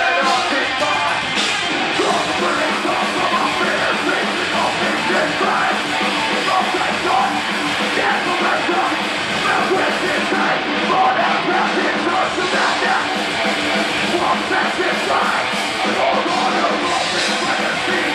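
Heavy metal band playing live: distorted electric guitars, drums and yelled vocals, loud and continuous.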